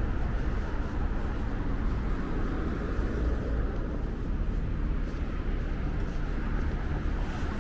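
Steady city street ambience: a continuous low rumble of road traffic with no sharp events.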